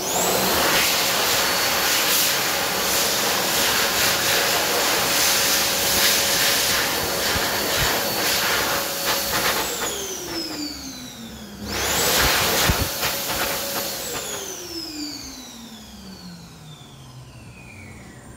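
Mitsubishi Jet Towel Smart hand dryer blowing: a loud rush of air with a high whine that comes up to speed at once. About ten seconds in it cuts out and the motor winds down with a falling whine. It starts again about two seconds later, then winds down once more from about fourteen seconds, fading slowly.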